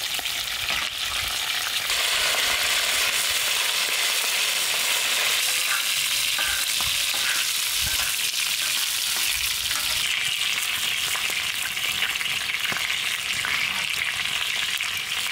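A whole rohu fish sizzling steadily in hot oil on a large flat griddle (tawa), with occasional scrapes and taps of a metal spatula against the griddle.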